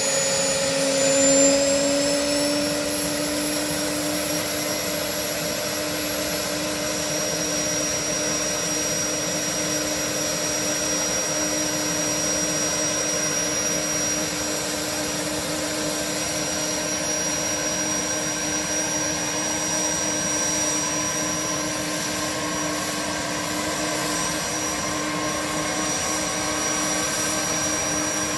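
Aérospatiale Gazelle helicopter's turboshaft engine running on the ground during start-up, with the rotor turning: a steady high whine over a steady hum and a rushing noise. The tones shift in pitch in the first couple of seconds and then hold steady.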